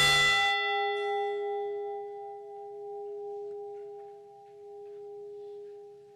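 A memorial bell, struck once, ringing and slowly dying away. The higher tones fade within about two seconds, while a low hum with a slight waver lingers longest. The bell is tolled once for each lost crew member.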